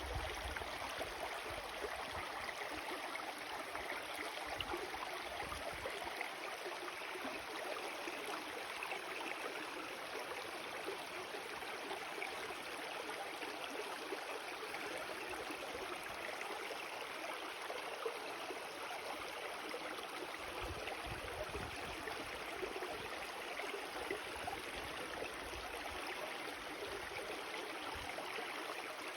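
Steady rushing of flowing water, like a creek or stream running, with brief low rumbles a couple of times.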